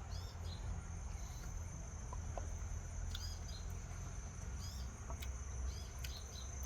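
Steady high-pitched insect drone, like crickets, with short chirps several times over it and a low rumble underneath.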